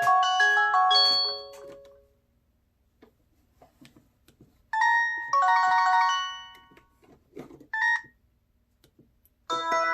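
Ringtones played through the LG AX490 phone's speaker, one after another as short electronic melodies. One fades out about a second and a half in, faint clicks follow, a new tune plays for about two seconds from five seconds in, a brief snatch follows near eight seconds, and another begins near the end.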